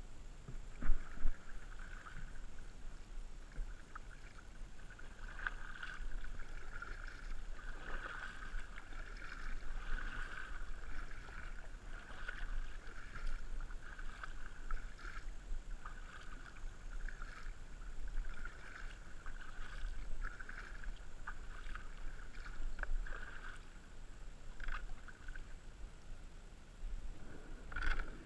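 Kayak paddle strokes dipping and splashing in a shallow river, with water trickling and gurgling around the kayak in uneven surges every second or two. Two sharp knocks about a second in.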